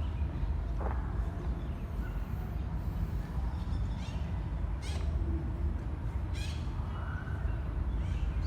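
Short, harsh bird calls, four or five of them at irregular intervals, over a steady low rumble.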